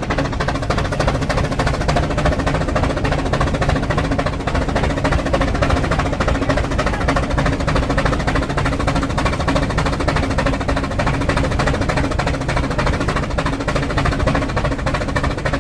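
Steam rack locomotive puffing with a rapid, even beat as it climbs, the strokes running on steadily throughout.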